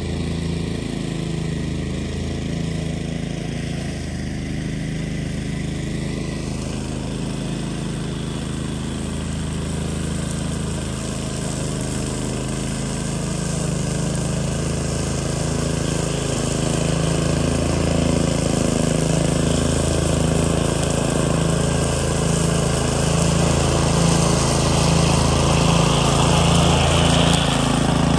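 DR Field & Brush Mower's gasoline engine running steadily, growing gradually louder over the second half.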